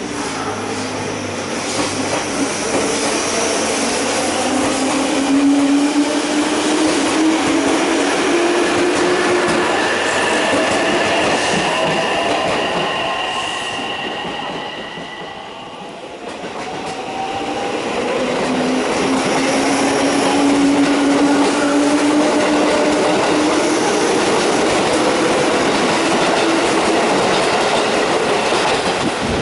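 JR West 201 series electric train pulling away: the motors give a rising whine over wheel-and-rail noise as it gathers speed, then fade out. About halfway through another train passage builds up, with wheel-on-rail clatter, wheel squeal and motor whine.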